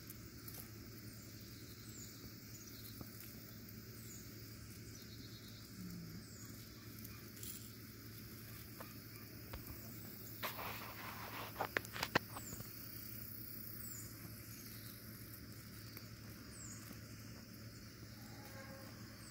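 Steady chorus of crickets and other insects, with short high falling chirps every second or two. About ten seconds in comes a short burst of rustling and clicks, the loudest sound here.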